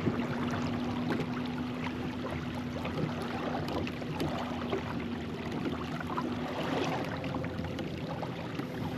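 Water sloshing and splashing around a kayak, with a steady low hum underneath that shifts higher in pitch near the end.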